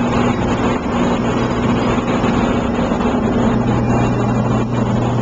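Asphalt cold milling machine at work: a steady engine drone with a dense grinding noise over it as it cuts away old asphalt.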